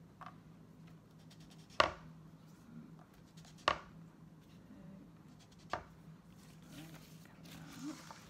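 Metal petal cutter pressed down through rolled sugar paste onto a hard plastic board: three sharp knocks about two seconds apart, one for each petal cut. Near the end a plastic sheet rustles as it is moved.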